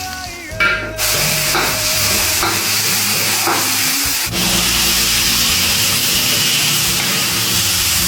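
Steady loud hissing of food cooking on the stove, steam and sizzle from the pot of mashi.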